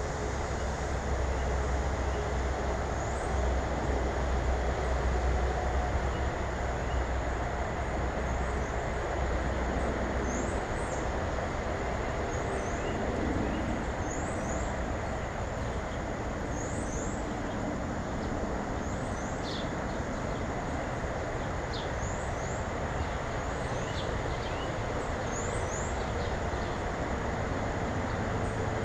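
A steady low rumbling noise, heaviest in the first third, with small birds giving short, high chirps, often in quick pairs, every second or two.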